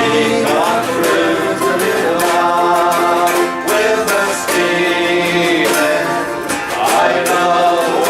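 Folk band playing a song: a voice singing over strummed and plucked guitar accompaniment.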